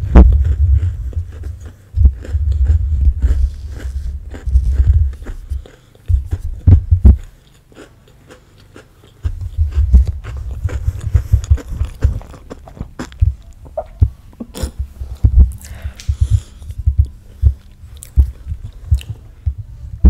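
Chewing close to the microphone: uneven low rumbling thumps mixed with many small sharp clicks, dropping away for a couple of seconds midway.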